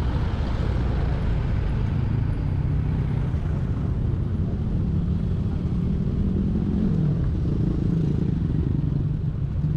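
Vehicle engines idling in stalled traffic: a steady low rumble, with one engine note rising slightly about six to eight seconds in.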